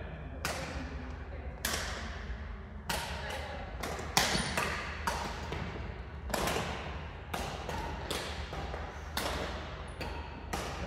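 Badminton rackets hitting a shuttlecock in a rally: a string of sharp hits at uneven intervals, the loudest about four seconds in, with voices in the background.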